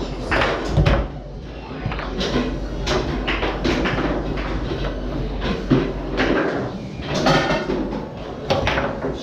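Foosball play on a Tornado table: the ball and the rods clacking and knocking against the players and walls in irregular, sharp knocks, several of them close together.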